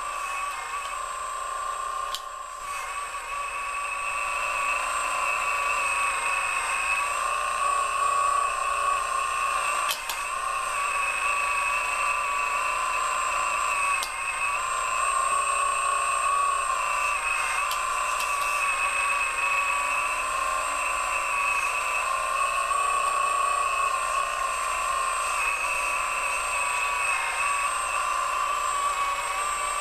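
Radio-controlled scale model excavator working in dirt: its electric drive gives a steady high whine that wavers slightly in pitch as the arm and bucket move, with a few sharp clicks.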